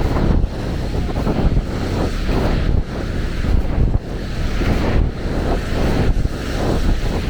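Wind buffeting the microphone in gusts, over waves of the Baltic Sea washing onto the beach.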